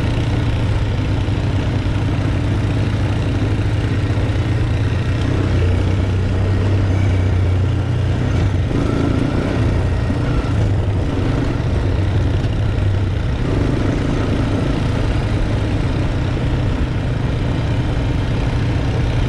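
Honda FourTrax Recon ATV's single-cylinder engine running steadily as the quad rides along a gravel trail.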